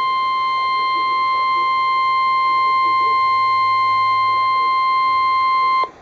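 NOAA Weather Radio 1050 Hz warning alert tone from a RadioShack weather radio's speaker: one steady, loud, high tone that cuts off suddenly near the end. The tone is the signal that a warning message follows, here a severe thunderstorm warning.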